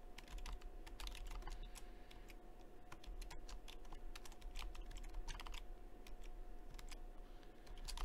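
Typing on a computer keyboard: a run of quick keystroke clicks with short pauses between them.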